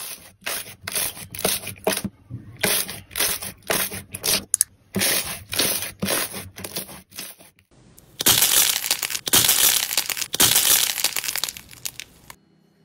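Slime being kneaded and squeezed by hand: a quick run of squishy, crackling strokes, about two or three a second, as clear blue slime is folded. After a short break, a louder, denser crackle for about four seconds as a pink slime with a silver glitter coating is squeezed.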